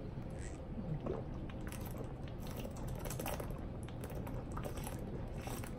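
Someone drinking from a plastic water bottle: a run of gulps and swallows with small irregular clicks.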